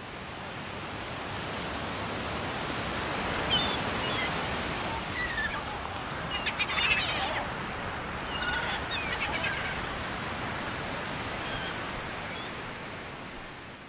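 Outdoor ambience of a steady rushing noise with small birds chirping over it: short, high, falling chirps scattered between about 3 and 11 seconds in, the loudest around 3.5 and 7 seconds.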